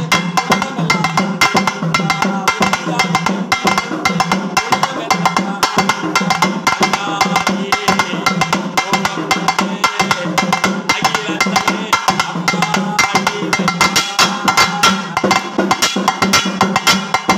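Fast, continuous stick drumming on a pair of laced drums of the Tamil pambai kind, the strokes falling in a rapid, even rhythm.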